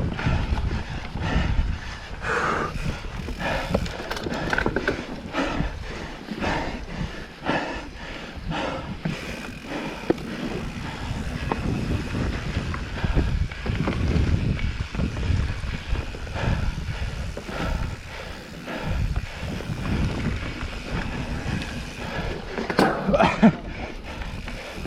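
Mountain bike ridden along a dirt trail: tyre noise and the bike rattling and knocking over the bumps, with the rider's heavy breathing.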